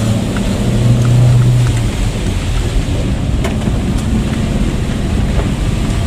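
Car driving in rain, heard from inside the cabin: a steady low engine and road rumble with rain ticking on the body. The engine hum rises slightly about a second in.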